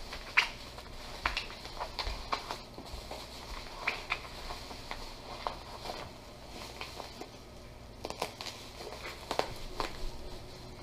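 Plastic bubble wrap crinkling and crackling in irregular sharp clicks as it is rolled up by hand.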